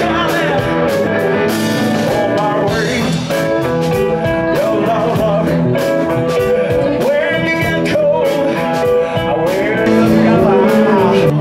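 Live blues rock band: a man singing into a microphone over electric guitar and drums.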